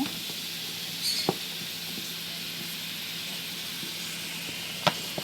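Zucchini cores frying in hot oil in a pan: a steady sizzle, with a couple of faint clicks.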